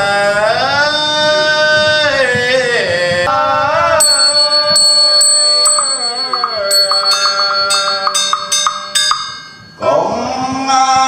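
Vietnamese Buddhist funeral chant sung in long, gliding held notes. From about four seconds in, a small bell is struck several times, its ringing tone hanging under the voice. The voice breaks off briefly near the end, then the chant resumes.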